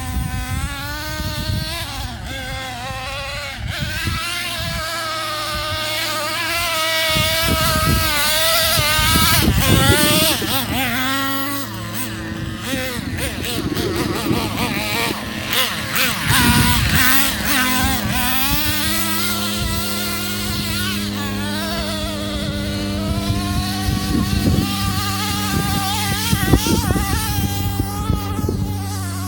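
Traxxas Revo RC truck's small nitro engine running, its high-pitched whine rising and falling again and again as the throttle is worked while it drives through the dirt ruts.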